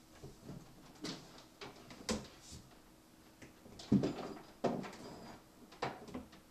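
Handling noise of cables and plugs being worked behind a TV: a handful of short knocks, clicks and rattles, the loudest a knock about four seconds in.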